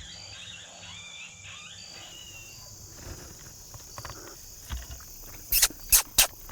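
A steady high drone of insects with warbling bird calls that fade out after about two and a half seconds. Near the end come three loud, sharp knocks in quick succession.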